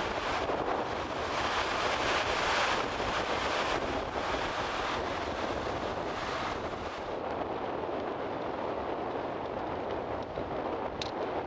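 Ocean surf washing over a rounded-boulder beach, with wind buffeting the microphone; the high hiss of the wash drops away about seven seconds in.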